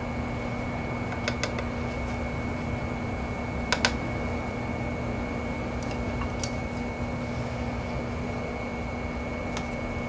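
Steady machine hum with a constant tone, and a few light clicks scattered through it, two close together about four seconds in.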